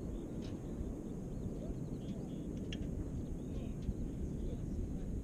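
Steady low rumble of open-air background noise, with small birds chirping now and then.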